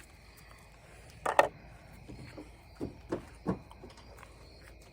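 Handling noises: a few short, sharp knocks and clicks, the loudest about a second and a half in and quieter ones around three seconds in.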